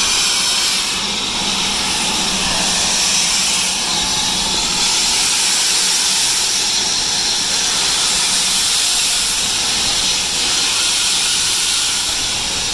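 BR Standard Class 4MT 2-6-4 tank locomotive 80151 rolling slowly past with its cylinder drain cocks open, letting out a loud, steady hiss of steam.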